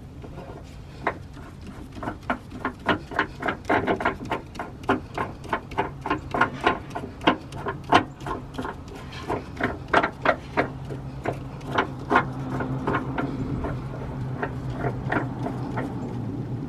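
Quick, uneven metal clicking, several clicks a second, as the bolt of an aftermarket adjustable rear suspension arm is screwed back in by hand. About twelve seconds in, the clicks thin out and a steady low hum takes over.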